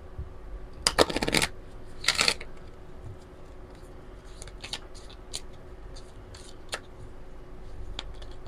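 A deck of oracle cards being shuffled by hand: two quick riffles about a second in and again a second later, then scattered light taps and slides of the cards as the deck is squared and fanned.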